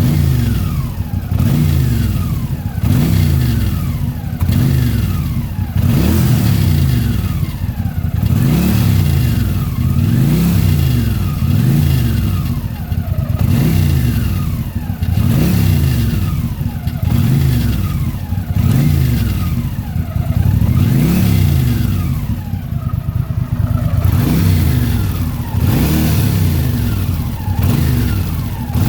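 Honda CX650 Custom motorcycle's liquid-cooled V-twin engine revved up and let back down over and over, about once every two seconds. It is being run to show a noise that the owner cannot place.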